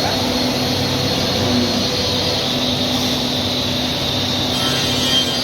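A five-axis woodworking CNC machine running steadily: a constant mechanical whir with several steady tones and no pauses.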